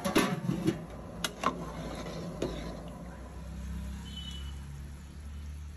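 A metal ladle knocks and scrapes against a large aluminium cooking pot while stirring a wet chicken masala. There are several sharp clinks in the first second and a half and one more a little later, over a steady low rumble.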